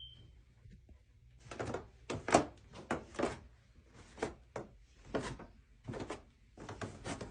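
Cat growling and hissing in short repeated bursts, about two a second, while guarding a toy.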